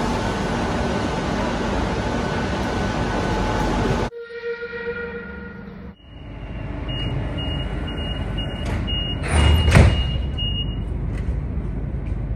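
Steady rumbling noise of a Madrid Metro train standing at an underground platform, cut off abruptly about four seconds in. Then subscribe-button sound effects: a short held chime, then clicks and a run of short high beeps with a loud whoosh.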